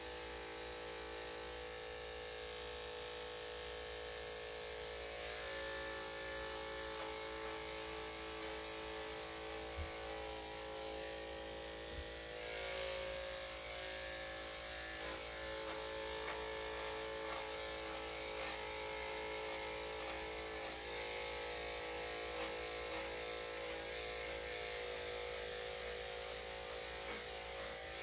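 Electric dog grooming clippers running steadily, their motor hum changing tone slightly every few seconds.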